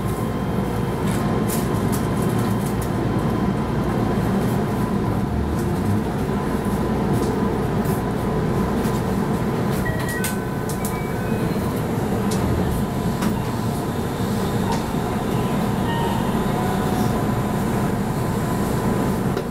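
Steady interior noise in the driver's cab of a Keihan 13000 series electric commuter train: an even rumble with a thin steady whine and scattered faint clicks.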